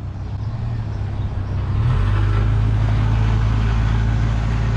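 Car engine and road noise heard from inside the cabin: a steady low drone that grows louder and slightly higher about two seconds in, then holds steady.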